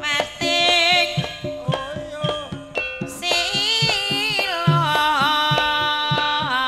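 Javanese gamelan music: sustained struck tones with regular low drum strokes, and a female singer's wavering, ornamented voice over them.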